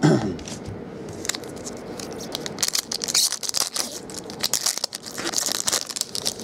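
A foil trading-card pack wrapper being torn open and crinkled by hand: a run of crackling rips and crinkles, busiest about three seconds in and again near the end.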